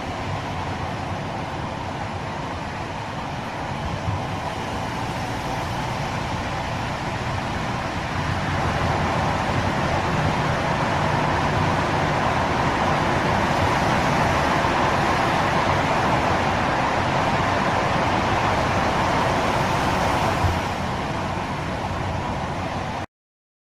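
Car driving through a road underpass: steady road and engine noise that grows louder about eight seconds in and stays up until a short knock around twenty seconds, then drops back. The sound cuts off abruptly just before the end.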